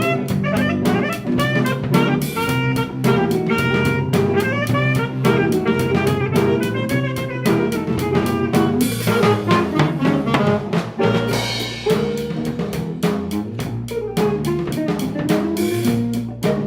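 Small instrumental band playing a jazz-funk arrangement live. A drum kit keeps a busy, steady beat under saxophone and brass melody lines and a bass line, with cymbal crashes about nine and eleven seconds in.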